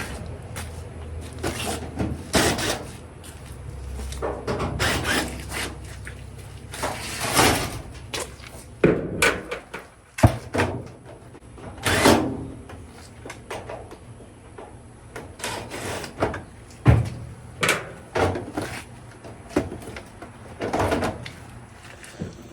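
Irregular knocks, clacks and scrapes of a dryer's cabinet panels and parts being loosened, lifted and handled during disassembly.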